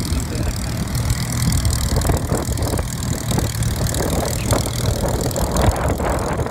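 Spitfire-family fighter's V12 piston engine ticking over at low power as it taxis past, a steady low rumble with an uneven throb.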